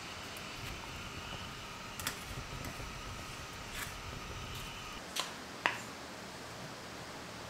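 A spoon clinks a couple of times against a stainless steel saucepan of hot water as a poached egg is lifted out, over a steady low hum. The hum stops about five seconds in, followed by two sharp clinks.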